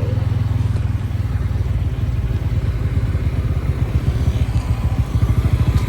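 Motorcycle engine running while riding, its firing pulses steady and low, growing a little louder toward the end.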